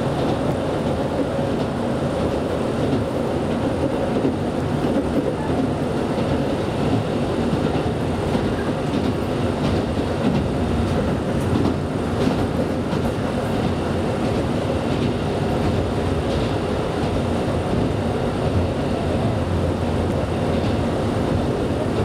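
KiHa 125 diesel railcar running at speed, heard from inside the passenger cabin: a steady low engine and running noise, with occasional clacks of the wheels over rail joints.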